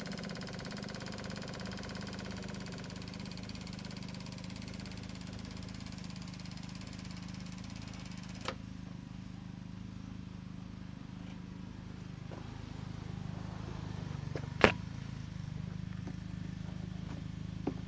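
12-volt electric inline fuel pump running after the key is switched to on, a steady buzzing hum as it pumps fuel up the new line to the carburetor. About eight seconds in, its higher buzz drops away suddenly, leaving a lower hum. A single sharp knock sounds near the end.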